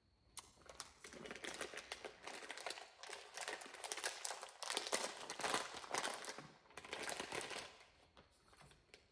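Plastic packaging crinkling and rustling as makeup items are handled and taken out of the package, with many small crackles and clicks; it dies down near the end.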